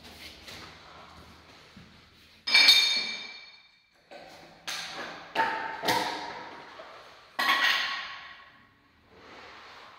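Hard objects striking each other with a ringing clink, about five sharp strikes, each ringing briefly and dying away over about a second.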